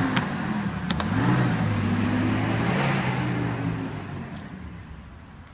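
Mercedes-Benz W124 estate car's engine accelerating, its pitch rising about a second in, then holding and fading away over the last couple of seconds. Two sharp knocks come in the first second.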